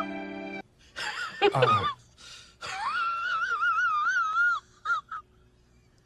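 A high, wavering wail: a falling cry about a second in, then a long trembling whine held for about two seconds, and two short yelps near the end. Music stops just before it.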